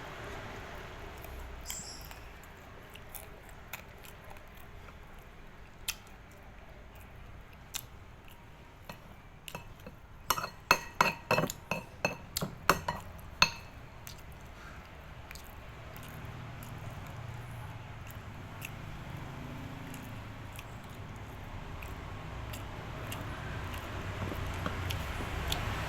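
Utensils clinking against a dish: scattered single clinks, then a quick run of about ten ringing clinks in the middle, over faint background noise.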